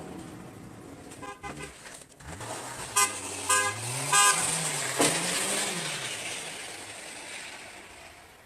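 A car horn sounding in several short toots, over a vehicle engine revving up and down, then fading away.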